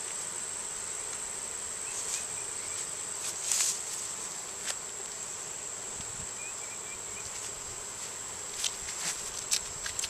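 Steady high-pitched insect drone, with a few short rustles and light clicks as hive parts are handled.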